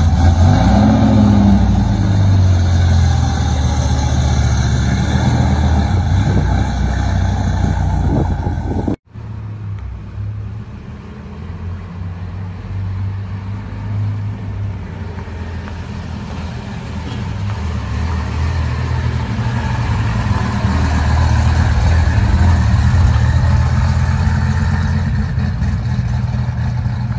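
Restomod 1960s Dodge Charger V8 engines running in two clips: the first idling with a short throttle blip about a second in, then, after a sudden cut about nine seconds in, a second Charger running as it drives off, growing louder in the second half.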